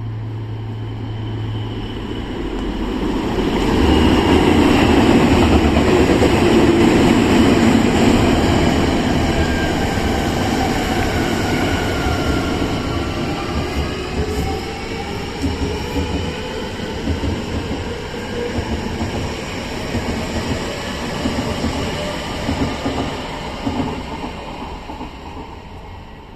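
Odakyu 3000 and 8000 series electric trains running close side by side: steady wheel-on-rail rumble with traction-motor whines sliding in pitch. Loudest about four to nine seconds in, easing off near the end.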